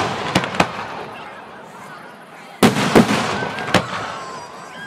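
Aerial firework shells bursting at close range: a couple of sharp bangs just after the start, then a loud burst about two and a half seconds in, followed by two more cracks and a fading rumble.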